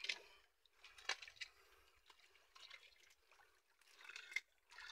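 Faint water dripping and trickling, with a few sharp clicks and rustles as fish are picked by hand from a wet fishing net.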